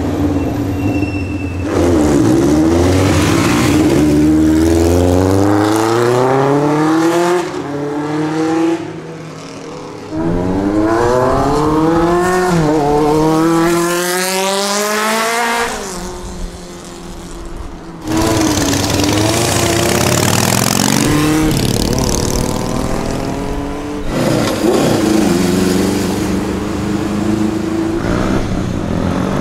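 Older street motorcycles accelerating past one after another, each engine's pitch climbing as it revs through the gears and dropping back at each shift, with abrupt changes from one passing bike to the next.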